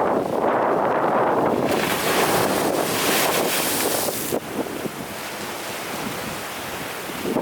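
Big ocean surf breaking on the shore: a steady roar, then a wave crashes with a bright hiss of foam from about two seconds in, easing to a softer wash after about four seconds.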